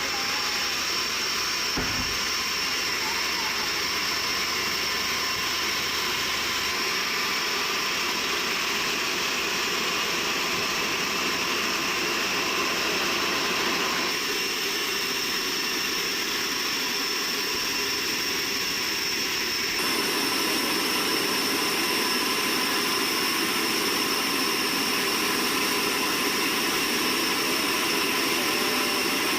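Sawmill machinery running steadily, a constant mechanical drone with a high whine over it, its character shifting slightly twice.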